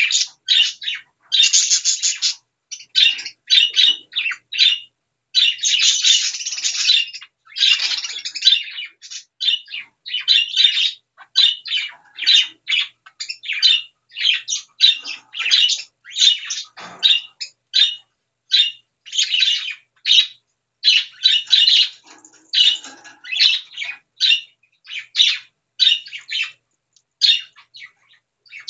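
Baby birds calling over and over, in short, harsh, high chirps and squawks that come in quick strings with brief gaps.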